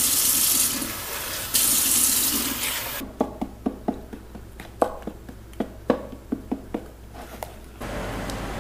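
Kitchen faucet running cold water into a plastic container of pancake mix, easing off briefly about half a second in and then running strongly again. From about three seconds in, a wooden spoon stirs the thick pancake batter, knocking against the plastic container in a string of irregular taps.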